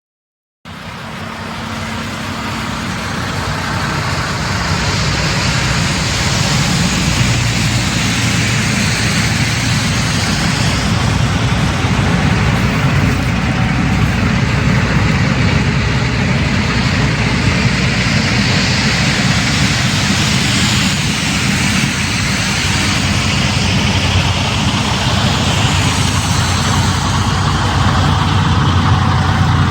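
Semi truck on the road: a steady engine drone under a broad hiss of road and wind noise, starting suddenly and growing louder over the first few seconds.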